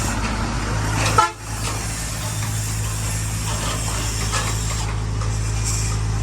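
Diesel engine of heavy earthmoving machinery running steadily with a deep hum. A little over a second in there is a short sharp sound and the sound briefly drops out before the engine hum returns.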